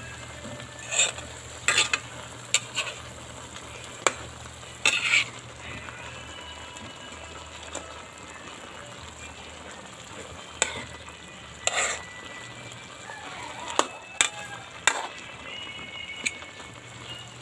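Metal spatula scraping and clanking against a metal wok while stirring chopped squash, string beans and eggplant, about a dozen irregular scrapes over a steady sizzle of frying.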